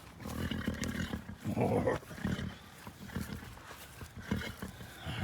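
A farm animal making a series of short, low, irregular calls.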